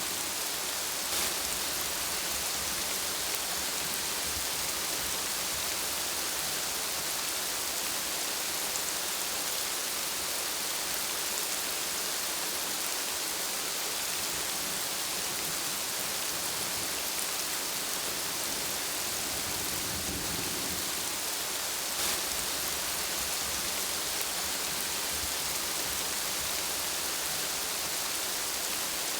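Heavy rain falling steadily in a forest, a dense even hiss of drops with a few sharper drop ticks standing out.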